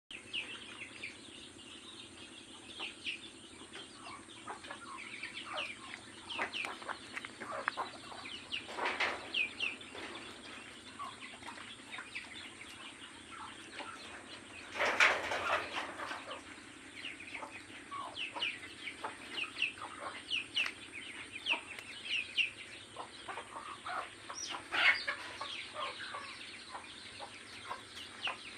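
A flock of chickens clucking and calling, with many short, quick calls overlapping throughout. There are a few louder bursts, the loudest about fifteen seconds in.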